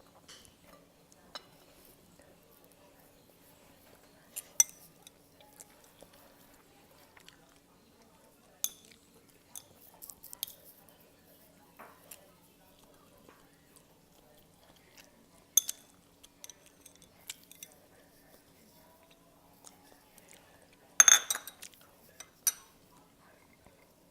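Eating utensils clinking against a bowl now and then while ramen is eaten, with soft chewing between. The clicks come singly every few seconds, and the loudest cluster of clinks comes near the end. A faint steady hum runs underneath.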